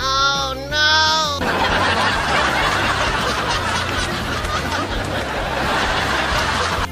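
Dubbed-in laughter sound effect: two short, high-pitched laughs, then a dense, steady mass of laughter that cuts off abruptly.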